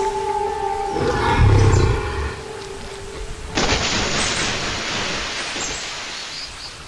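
Dinosaur roar sound effects over background music. A low growl comes about a second in. Then, from about halfway, a long rough breathy roar starts suddenly and slowly fades.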